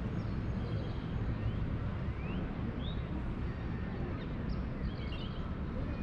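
Wind buffeting the microphone as a steady low rumble, with birds chirping faintly: a few short rising whistles and quick runs of repeated chirps.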